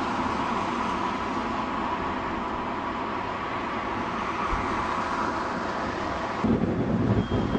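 Steady street traffic noise along an electric tramway. About six and a half seconds in, the sound changes abruptly to a louder, lower rumble.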